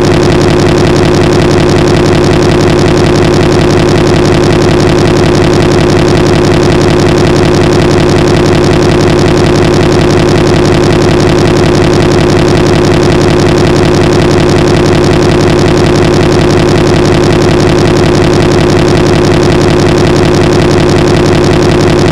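Loud, steady, unchanging buzzing drone from a corrupted recording: a short scrap of audio repeating with no variation, like a stuck digital glitch.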